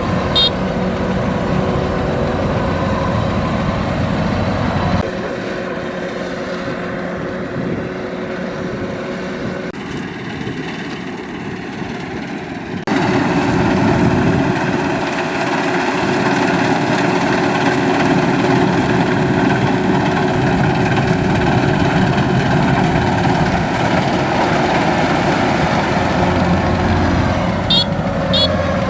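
The turbocharged four-cylinder diesel engine of a Kubota DC-93 combine harvester running steadily under work. The sound drops and thins abruptly about five seconds in and comes back louder around thirteen seconds in.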